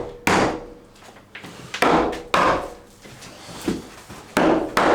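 Hammer blows on timber ceiling panels, knocking them along into place: about five sharp strikes at uneven spacing, two of them close together near the end.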